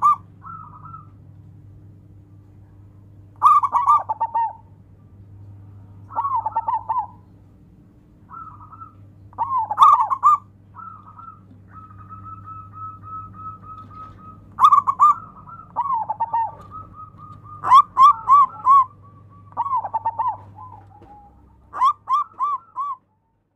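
Zebra dove (perkutut) cooing: short phrases of quick, repeated coos every few seconds, with one long level note about halfway.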